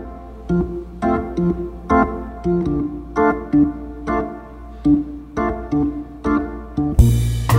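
Background music: a keyboard plays a repeating pattern of chords, and a fuller section with heavy bass and drums comes in near the end.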